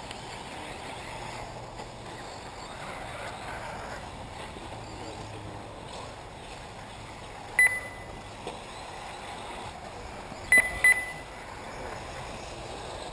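Short, high electronic beeps over steady background noise: one about seven and a half seconds in, then two close together about three seconds later.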